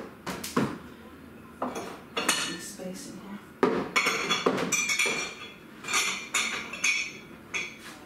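Dishes, pots and cutlery clattering as they are handled at a kitchen counter: a run of sharp clinks and knocks, several of them ringing like metal in the second half.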